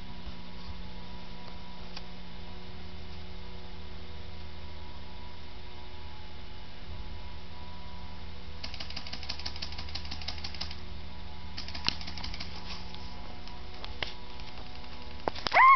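A steady electrical hum runs throughout. Near the middle, two spells of rapid clicking, each a second or two long, sound like the ratcheting bursts of airsoft electric guns firing at a distance. A short, loud rising sound comes right at the end.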